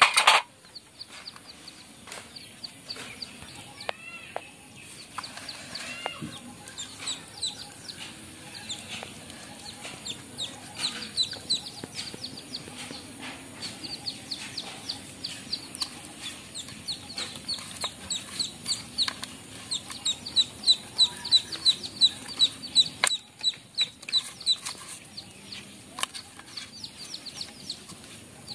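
Chickens calling: a steady run of short high chirps, coming fastest about twenty seconds in. A short loud noise sounds right at the start.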